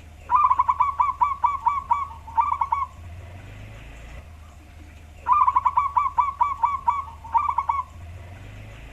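Zebra dove (perkutut) cooing, a deep-voiced local wild bird. It gives two bouts about five seconds apart, each a quick run of about eight short notes, a brief break, then two or three more, over a faint low hum.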